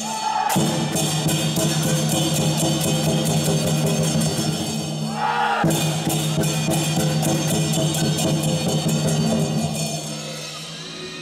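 Chinese lion dance percussion: drum with clashing cymbals playing a fast, dense beat over a steady low ringing. It breaks off briefly twice and drops away near the end.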